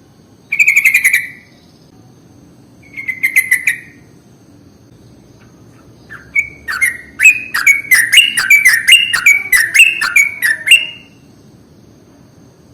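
Yellow-vented bulbul (trucukan) singing: two short bubbly chattering phrases, then a longer run of about a dozen quick falling notes from about six seconds in to near the end.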